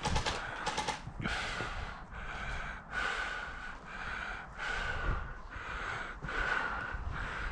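A person breathing hard, a rapid run of puffing breaths in and out, about one every half second to second.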